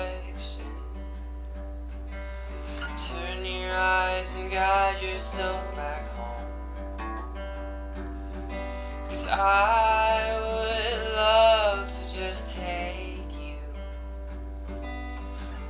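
A man singing to his own acoustic guitar strumming, with a sung phrase about three seconds in and a longer one about nine seconds in, and the guitar going on alone between them.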